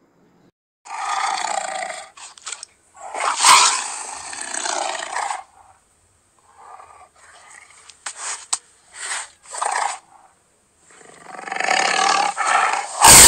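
Recorded tiger roars and growls from a virtual 3D tiger, in a series of rough calls a second or two long with short pauses, ending in a very loud, harsh burst.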